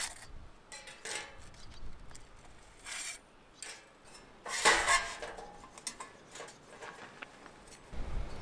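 Cooking gear being handled: pots, dishes and utensils clinking and clattering in irregular bursts, the loudest clatter about five seconds in.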